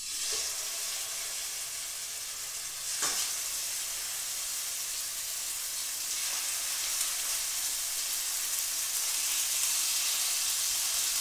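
Seasoned chicken breasts sizzling in hot olive oil in a skillet as they are laid in with tongs. The sizzle starts as the first piece goes in, flares briefly about three seconds in as another piece is added, and grows a little louder as more pieces go in.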